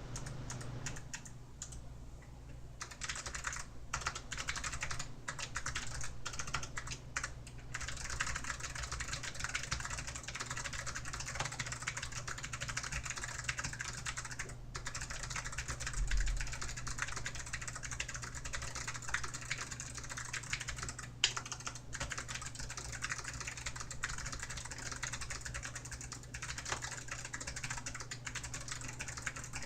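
Fast typing on a DAREU EK820 low-profile mechanical keyboard with Kailh low-profile clicky switches: a dense run of key clicks starting about three seconds in, with a few short pauses.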